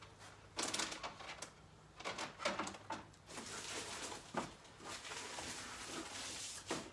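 Rummaging in a cardboard box: a few light knocks and rustles of parts and packing being handled, then a steadier rustling of paper from about three seconds in until near the end.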